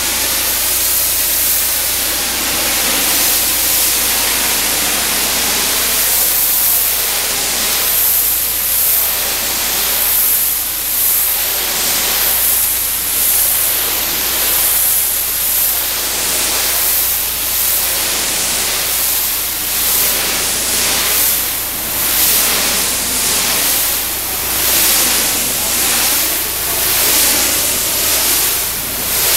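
Pressure washer's high-pressure water jet hissing against a brick wall, stripping spray-paint graffiti. A loud, steady spray that swells and fades about once a second.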